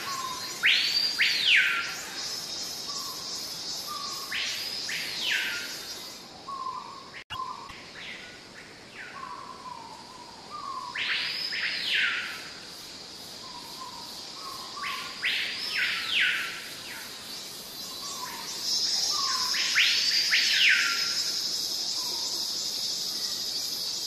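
A bird calling five times, each call a quick whistle that sweeps steeply up and falls back down, spaced several seconds apart. Under it a steady high insect drone comes in for a few seconds early on and again from a little before the end, with soft short chirps between the calls.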